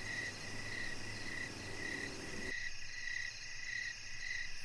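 Crickets chirping in a steady pulsing rhythm, about two chirps a second, as nighttime ambience. A low hum underneath stops abruptly about two and a half seconds in while the chirping carries on.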